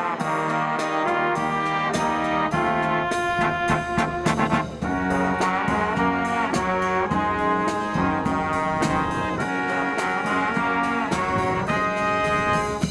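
Live brass band playing a full-voiced medley, trumpets and trombones over sustained chords, with a short break just before the five-second mark as a new phrase starts.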